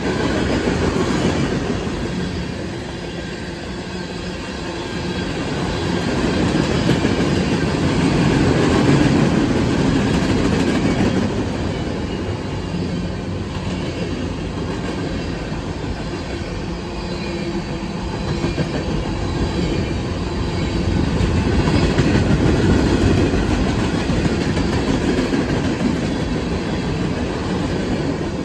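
Freight cars of a Norfolk Southern train rolling past at speed: a continuous rumble and clatter of steel wheels on rail, swelling and easing as the cars go by.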